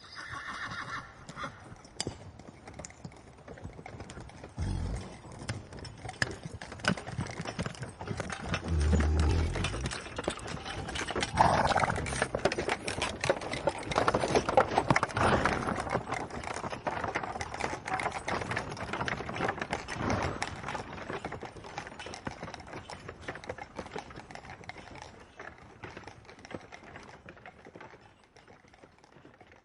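Horse-drawn cart going past: hooves clip-clopping and the cart clattering, growing louder to a peak about halfway through, then fading away. A horse whinnies briefly at the very start.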